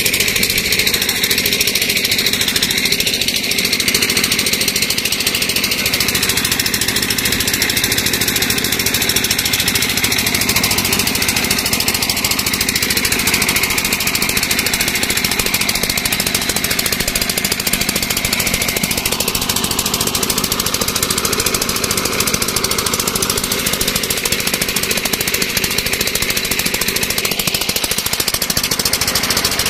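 Diesel engine running steadily with a fast, even knocking beat.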